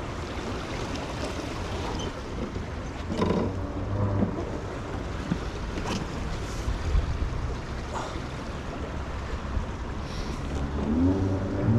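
Meltwater rushing steadily through a swollen brook, with wind buffeting the microphone.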